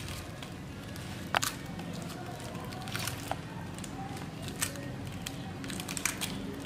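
Shell of a boiled egg being cracked and picked off by hand: a scatter of sharp little cracks and crackles, the loudest about a second and a half in.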